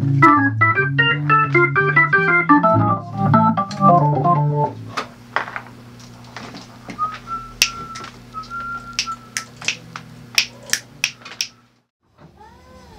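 Electric organ played through a Leslie speaker cabinet: quick runs of notes over a held bass and chord, settling about five seconds in into a single sustained chord with scattered sharp clicks over it. The sound cuts off suddenly about twelve seconds in.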